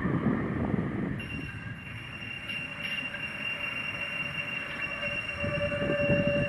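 Tram wheels squealing on the tight curve of a turning loop: a steady high-pitched squeal sets in about a second in over the rolling rumble, and a second, lower squeal tone joins in near the end. The squeal is wheel rubbing on the curved old rails, the kind that wears the trams' wheel tyres.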